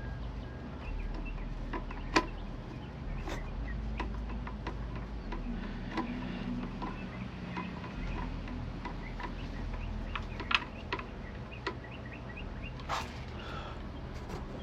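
Scattered light clicks and knocks over a steady low hum, the sharpest about two seconds in: a screwdriver and the plastic recoil starter housing of a lawnmower being handled as its last screw is driven in.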